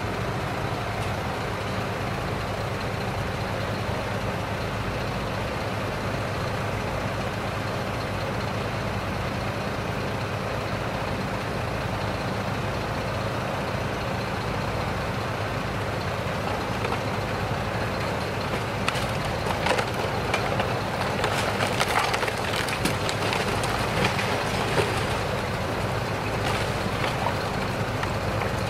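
Crane truck's engine running steadily while its grapple works at a fire-damaged barn wall. About two-thirds of the way in a run of sharp cracks and splintering begins as the grab tears at the burnt structure.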